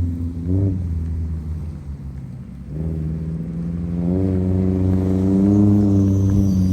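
Car engine revving during a donut attempt: a short blip about half a second in, falling off around two seconds, then climbing again near four seconds and held at high revs. The car is not breaking loose into a slide.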